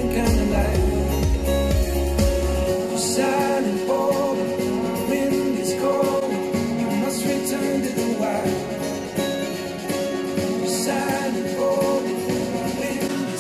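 A song played back through a pair of KRK Rokit 8 G4 studio monitors, switching partway through to a pair of Yamaha HS8 monitors, picked up by room microphones in front of the speakers. A heavy bass line drops out about three seconds in.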